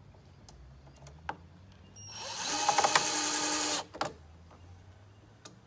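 Cordless drill-driver driving a screw through an aluminium curtain rail into the tailgate trim: one run of about two seconds, starting about two seconds in and stopping sharply, with a click just after.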